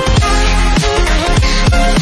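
Electronic dance music with a steady beat and deep bass notes that slide down in pitch, several times a second, under a short synth melody.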